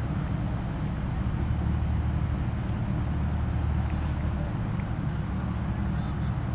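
Steady low mechanical rumble with a low hum in it, even in loudness.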